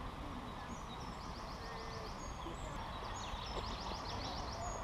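Small songbirds singing: quick high chirps and, about three seconds in, a fast trill of falling notes, over a steady low outdoor background noise.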